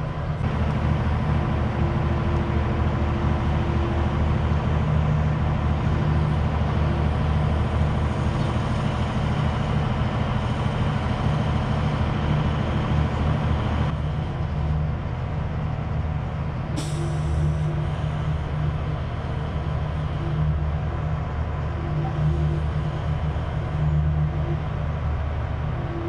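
Heavy diesel engine running steadily, its note changing about halfway through, with one short, sharp hiss of released air about two-thirds of the way through.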